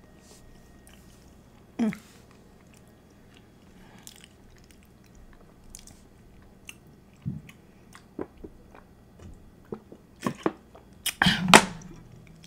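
Close-miked chewing and mouth sounds of someone eating chili cheese fries, with a drink from a plastic water bottle, made up of scattered small clicks and smacks. A sharp sound comes about two seconds in, and a cluster of louder ones comes near the end.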